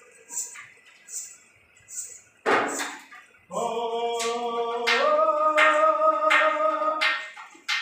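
Indian folk music for a Rajasthani dance starting up. Light, high-pitched percussion strikes come about once a second, then a loud drum stroke. A long held sung note follows over steady drumbeats, stepping up in pitch partway through.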